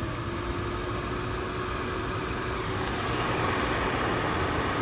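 Broan exhaust fan on a display, switched on and running with a steady whir and hum, getting louder about three seconds in.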